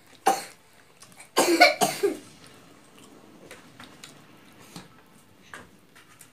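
A man coughing: one short cough just after the start, then a louder double cough about a second and a half in. Faint clicks of eating follow.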